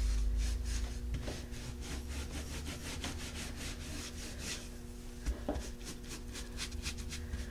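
Round wax brush scrubbing dark soft wax into the crevices of a textured wooden frame: quick, repeated scratchy brush strokes, several a second.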